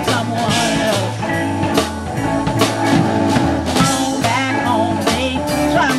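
Live blues band playing, with a bass line stepping from note to note under drum-kit beats and electric guitar.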